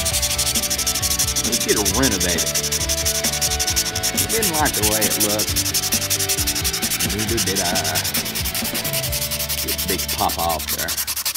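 Continuous scratchy rubbing noise, with a few faint wavering tones now and then underneath.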